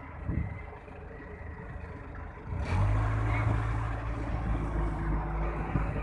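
Engine of heavy road-paving machinery running, coming in louder about two and a half seconds in with a steady low hum.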